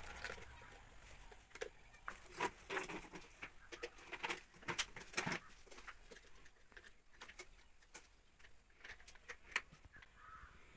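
Light, irregular clicks and taps of a nut and bolt being tightened on a child's tricycle footrest bracket.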